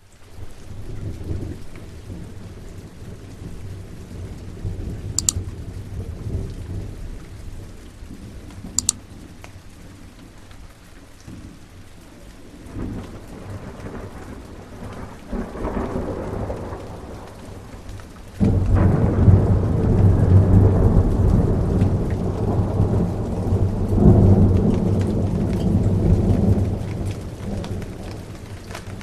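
Thunderstorm: rain falling on a window with rolling thunder. Low rumbles come and go, with a couple of sharp drop ticks. About two-thirds of the way in, a loud, deep thunder roll breaks in suddenly and rumbles for several seconds before easing off.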